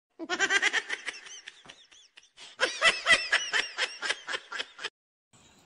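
Laughter in two runs of quick, rhythmic giggling bursts. The first run fades out about two seconds in, and the second starts half a second later and runs until near the end.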